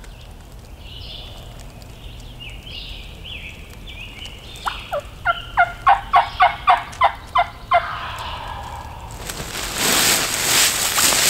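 A series of about eleven loud turkey yelps, each sharply dropping in pitch, about three a second. Near the end, dry leaf litter crunching and rustling as someone crawls through it.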